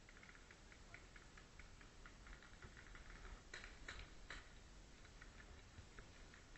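Faint, distant paintball marker fire: a run of small quick pops, several a second, with three louder, sharper shots close together about three and a half to four seconds in.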